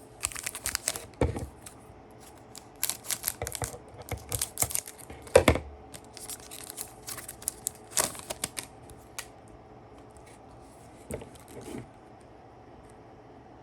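Trading cards and a pack wrapper being handled: sharp clicks and rustles in several short bursts, the loudest snap about five and a half seconds in.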